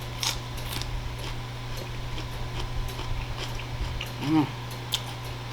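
Close-up chewing of a mouthful of raw salad vegetables, with scattered wet crunches and mouth clicks. A short hummed "mm" of enjoyment comes near the end.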